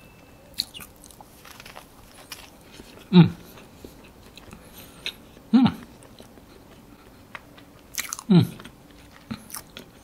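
Close-miked chewing of a bite of dry chocolate sponge cake, with soft wet mouth clicks throughout. Three short falling vocal sounds from the eater come about 3, 5.5 and 8.5 seconds in.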